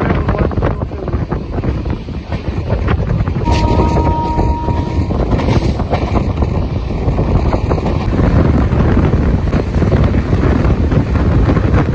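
Express passenger train running at speed, heard from on board: steady wind rush over the microphone over the rumble and clatter of the coach on the track.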